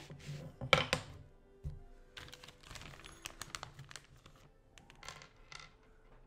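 Wooden loom parts knocking against each other and the table a couple of times about a second in, then a plastic bag of screws and hardware crinkling as a hand rummages in it.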